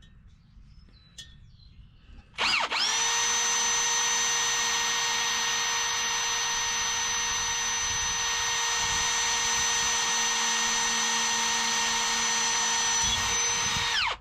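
Electric drill running at a steady high whine for about twelve seconds, starting about two seconds in and cutting off abruptly near the end, boring into the hard steel of a rusted exhaust pipe with a bit the user believes is worn out.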